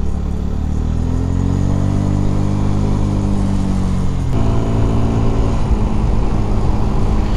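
Motorcycle engine running as it is ridden: its pitch climbs over the first couple of seconds and eases back down, then changes abruptly about four seconds in and holds steadier, over a low rumble.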